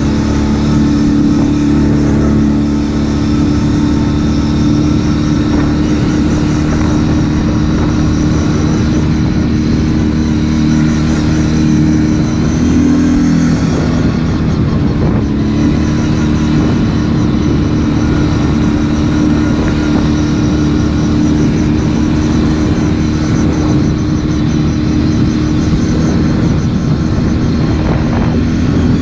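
ATV engine running under way at a fairly steady pitch. It eases off and shifts pitch briefly about halfway through, then picks back up.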